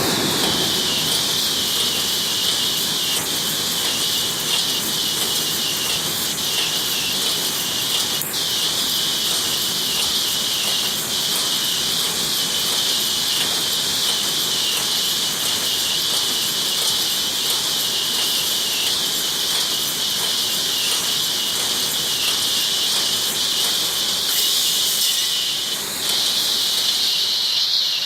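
Cage mesh welding machine running with a steady loud hiss, and a few faint brief squeaks.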